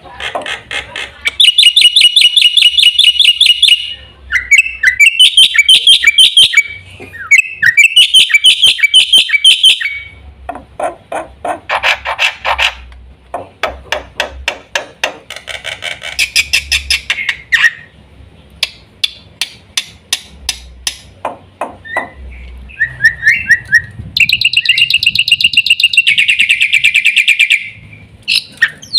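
Black-winged starling (jalak putih) singing loudly: harsh, rapid rattling phrases alternating with long runs of sharp clicking notes.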